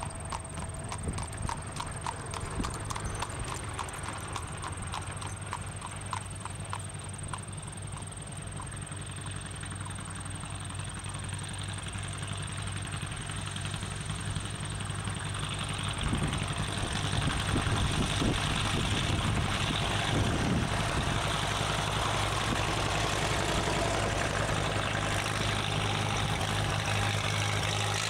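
Engines of old farm tractors running as a line of them approaches along the road and passes close, growing steadily louder through the second half. In the first several seconds a regular clopping beat fades away.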